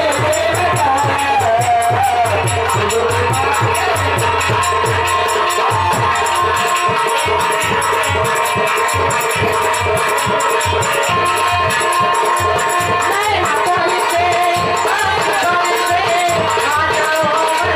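Live folk band music: dholak drum strokes and a fast, steady metallic rattle of hand percussion under a sustained melody. The drum strokes are heavier for the first six seconds or so and lighter after.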